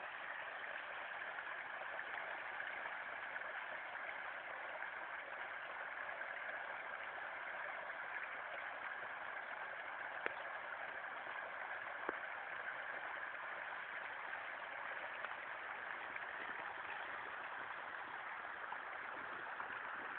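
Steady rushing noise of flowing water, even throughout, with two faint clicks about ten and twelve seconds in.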